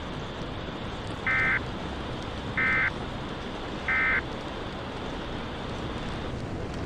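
Three short EAS end-of-message data bursts (the SAME 'NNNN' warbling digital code), evenly spaced about a second and a bit apart, marking the end of the alert broadcast. Steady rain runs underneath.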